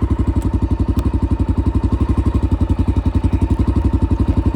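Honda XR dirt bike's single-cylinder four-stroke engine running steadily at low revs, an even pulse of about ten beats a second.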